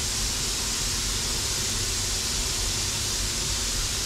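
Steady hiss of steam from a small vertical-boilered steam locomotive in steam, with a low rumble underneath and no separate knocks or clicks standing out.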